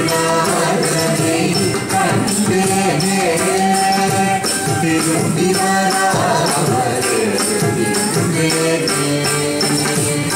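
Carnatic accompaniment for Bharatanatyam dance: a gliding melodic line over a steady drone and a regular percussive beat with bright jingling.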